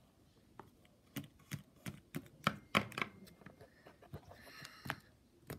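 Small plastic toy animal figure tapped against a hard surface in a run of sharp clicks, about three a second, then two more near the end.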